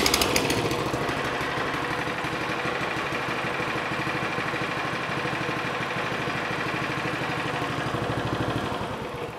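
Briggs & Stratton single-cylinder mower engine running steadily with an even beat, freshly restarted after fuel that had hydraulically locked the cylinder was cleared. It begins to die away near the end.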